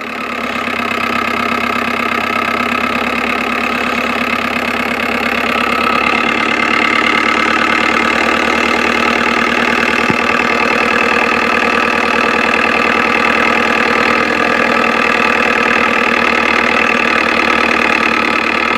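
AVIA 31 truck's diesel engine running steadily at an even idle-like beat.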